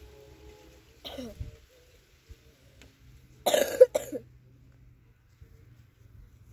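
A person coughing, a short harsh burst of two or three coughs about halfway through.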